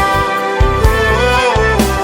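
Instrumental break in a Turkish pop song: a melody line over a steady beat, with no singing.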